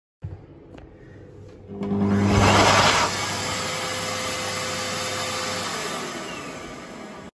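Mediclinics stainless-steel hand dryer switching on about two seconds in. It runs with a steady hum and a whine, loudest just after it starts. Near the end the whine falls in pitch and the sound fades as the motor winds down.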